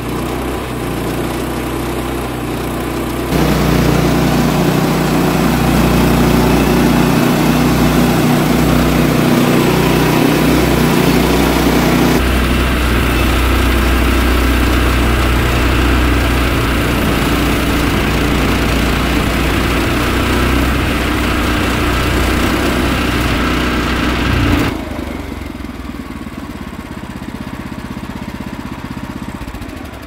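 Gas engine of a Woodland Mills HM130Max portable bandsaw sawmill running under load while the band blade cuts lengthwise through a spruce log, loud and steady. The sound gets louder about three seconds in. Near the end it drops to a lower, lighter running sound as the cut finishes.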